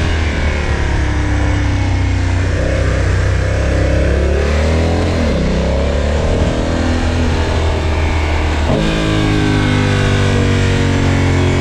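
Motorcycle engine under way, its revs dipping and climbing again midway, with an abrupt gear change about nine seconds in.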